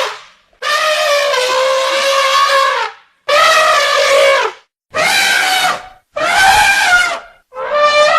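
Elephant trumpeting: about five calls in a row with short gaps between, the first long at over two seconds, the rest around a second each, the last running on past the end.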